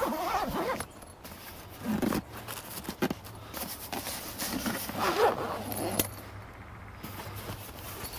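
Zipper on a fabric winch carry bag being pulled shut, with the bag rustling as it is handled: irregular pulls and scrapes, one sharp click about six seconds in.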